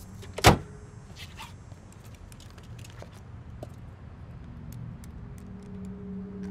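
Small clicks and ticks of hands handling a small plastic container, with one sharp knock about half a second in, over a low steady car-cabin rumble. A low held musical tone swells in near the end.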